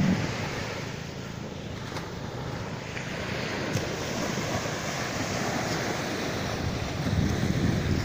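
Small waves breaking and washing up a sandy beach, with wind buffeting the phone's microphone. The surf grows louder near the end.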